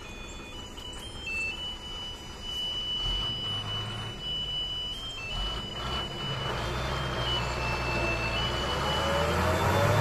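Heavily loaded multi-axle lorry's diesel engine running as it rounds a hairpin bend, growing louder as it comes closer. Over it, a thin, high electronic tone holds and then steps between pitches like a little tune.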